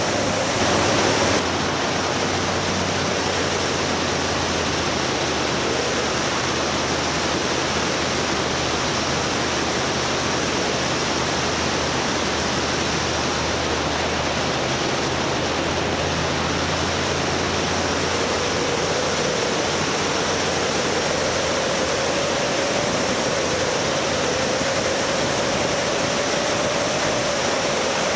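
Steady loud rushing noise from a moving vehicle ride, with a low engine hum underneath and a faint whine that slowly rises and falls in pitch.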